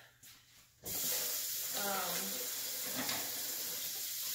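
A steady hiss that starts abruptly about a second in, after near silence, with a woman's voice faintly heard about two seconds in.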